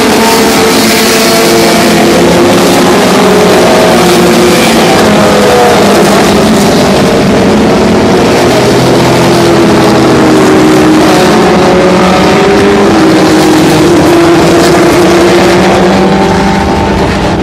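Several 2013 Formula One cars' 2.4-litre V8 engines at high revs, overlapping as the cars pass one after another. Their loud engine notes glide up and down continuously, easing slightly near the end.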